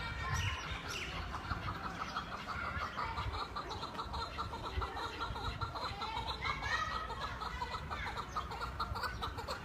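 Chukar partridge calling: a fast, steady run of clucking notes, with a few louder rising calls in the second half.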